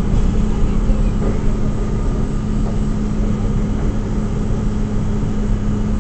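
R42 subway car heard from on board: a steady rumble with a constant low hum running through it.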